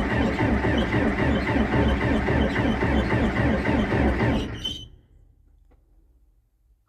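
Starter cranking a cold 1978 John Deere 4219T four-cylinder turbo diesel without glow plugs or ether, a fast rhythmic churning that does not catch; the cranking stops abruptly about four and a half seconds in.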